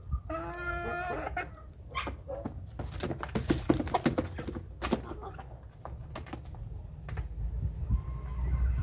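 Young chickens: one gives a drawn-out call lasting about a second near the start, followed by a short rising call. Then comes a rapid clatter of clicks as the birds peck feed from a dish, with a few scattered clucks.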